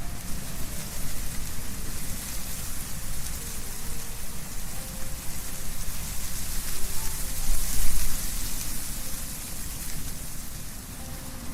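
Wind blowing through trees, with leaves rustling in a steady dense hiss and a low rumble underneath.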